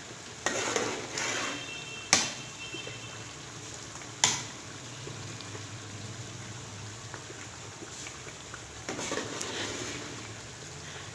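Thick semolina halwa bubbling and sputtering in an aluminium pot while a metal spoon stirs and scrapes through it. There are two sharp knocks of the spoon against the pot, about two and four seconds in.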